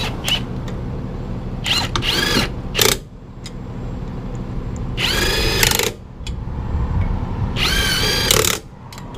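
Impact wrench running lug nuts onto a trailer wheel in short bursts, each a whine that rises in pitch and then holds. Two brief bursts come about two seconds in, and two longer ones of about a second each come near the middle and near the end.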